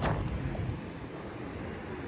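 Steady low rumbling background noise with no clear single source.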